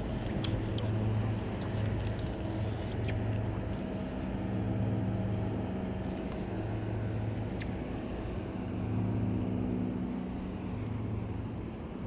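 Boat motor running steadily, a low engine hum that swells and fades slowly every couple of seconds, with a few faint clicks over it.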